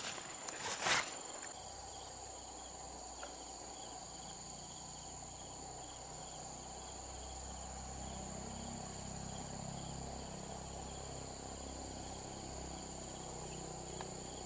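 Steady high-pitched chorus of insects, several constant tones over a softer, evenly pulsing note. In the first second or so, loud rustling and clatter from handling a mesh keepnet.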